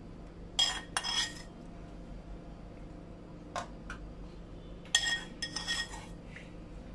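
A metal spoon scraping and clinking against a small frying pan and aluminium foil trays while spooning out toasted mint in oil: a cluster of ringing clinks about a second in, two light taps in the middle, and another cluster around five seconds in.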